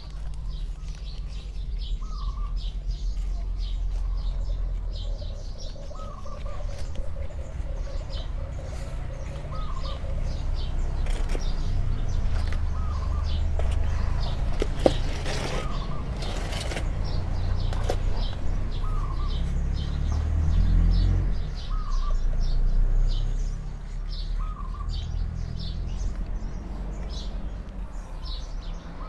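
Birds calling: a short chirp repeats every two to three seconds among many quicker high chirps, over a low steady rumble. Around the middle comes a rustling and crumbling of potting soil and dry leaves as gloved hands plant caladium offsets.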